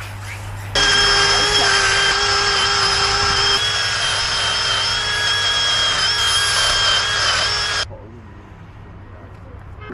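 A power tool running steadily with a high whine for about seven seconds, starting just under a second in and stopping abruptly.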